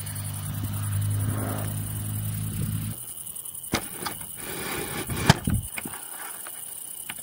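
A steady low engine hum that stops suddenly about three seconds in, followed by a few sharp clicks.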